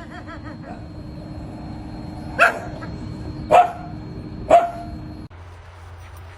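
A dog barking three times, about a second apart, over a steady hum that cuts off abruptly about five seconds in.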